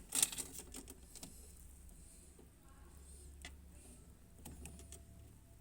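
Washing machine drain parts being fitted back into place: a few sharp clicks and knocks, the loudest just after the start and a small cluster near the end, over a low steady hum.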